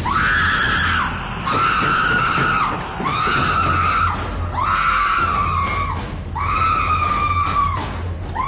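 A woman screaming in terror: about six long, high-pitched screams in a row, each about a second long, with short breaks between.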